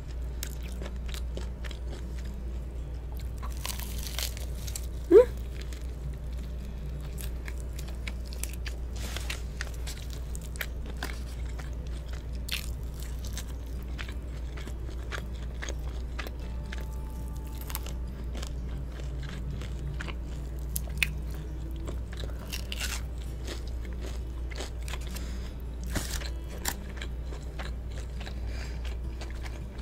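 Close-miked crunching and chewing of crispy-skinned fried chicken coated in cheese powder: many crisp bites and mouth sounds over a steady low hum. About five seconds in there is one short, much louder sound that rises in pitch.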